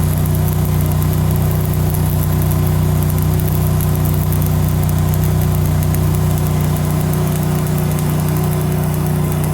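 An engine running steadily at one constant speed, a low hum with no revving.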